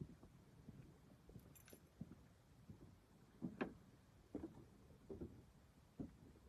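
Faint knocks and clicks, about four of them in the second half, with a brief, thin high-pitched sound about one and a half seconds in.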